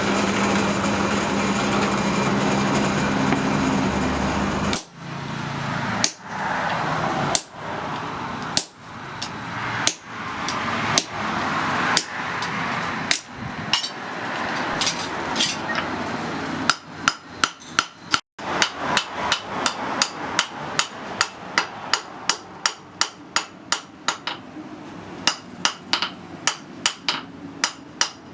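Hammer blows on hot iron at the anvil while forging blacksmith's tongs. The first few seconds hold a steady machine noise. The hammering then starts with single strikes about a second apart and, after a brief gap, turns to quicker strikes, two or three a second.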